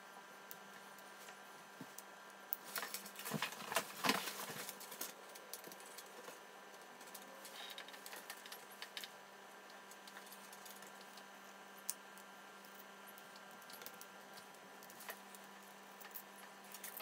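Small parts of a 1:6 scale M82A1 model rifle clicking and rattling as they are handled and fitted together by hand. A cluster of louder clicks comes about three to four and a half seconds in, with scattered single clicks after it.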